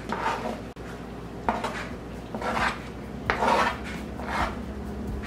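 Chopped parsley being scraped off a plastic cutting board into a saucepan: about five short rasping scrapes of a utensil across the board, roughly one a second.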